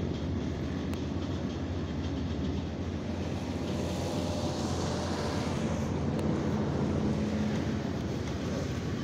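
Fishing boat's engine running steadily, a low even drone with a faint hum above it.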